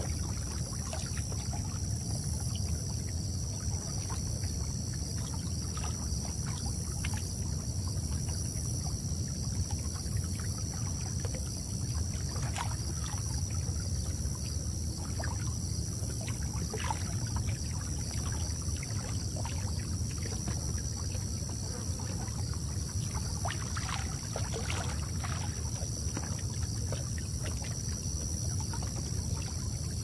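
Moving water: a steady low rumble with many small splashes and drips scattered through it, and a steady high hiss above.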